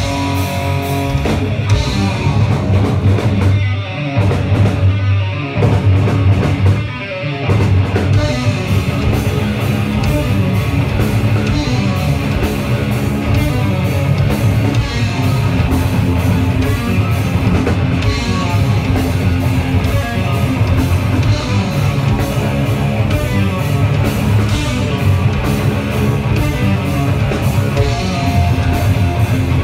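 Live heavy rock band playing loudly: distorted electric guitar, bass and drum kit. A stop-start riff with brief breaks in the first several seconds gives way to steady full-band playing.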